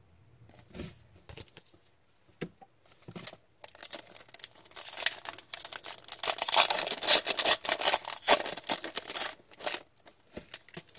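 Crinkling and tearing of a hockey trading-card pack wrapper handled and opened by hand: a few soft clicks, then dense rapid crackling for several seconds, loudest in the middle.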